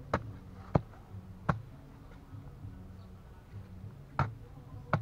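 Hard clay of a termite mound being struck and broken apart: five sharp knocks at uneven intervals.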